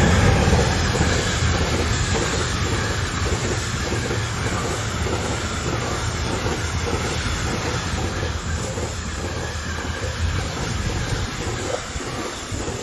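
A train rolling past close by, loudest right at the start, then a steady run of wagons clattering in a rhythm as their wheels pass over the rail joints.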